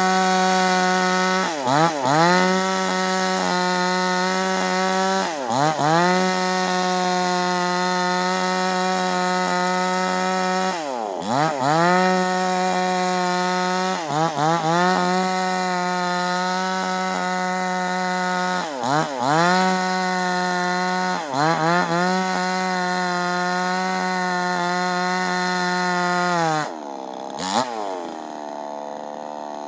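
New chainsaw engine running at high revs, its pitch dipping sharply and recovering again and again. Near the end it drops back to idle.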